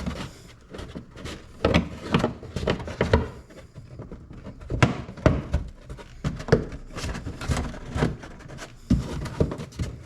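Plastic wheel well liner being pushed and worked back into place by hand: a string of irregular knocks and thunks with some rubbing between them.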